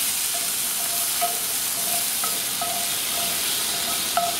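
Quartered datterini tomatoes and garlic sizzling in olive oil in a Lodge cast-iron skillet, stirred with a spoon that clicks and scrapes against the pan every second or so.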